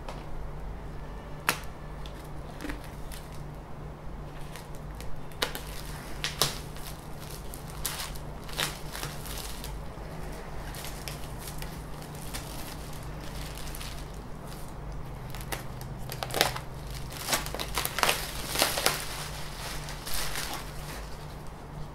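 Clear plastic packaging bag crinkling and rustling in scattered crackles as it is handled and pulled from around a delta 3D printer, busiest a few seconds before the end. A steady low hum runs underneath.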